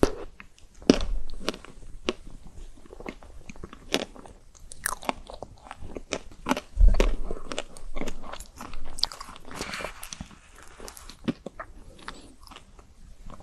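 Close-miked biting and chewing of chocolate-coated ice cream: irregular crisp cracks of the frozen chocolate shell with soft chewing, and two heavier bites about a second in and about seven seconds in.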